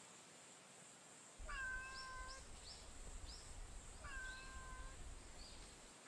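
Street cat meowing twice, two drawn-out, level-pitched meows a couple of seconds apart, with a low rumble underneath.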